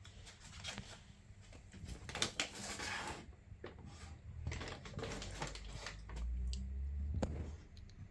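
Paper bag rustling and crinkling in irregular bursts, loudest about two to three seconds in, with a few light clicks and taps.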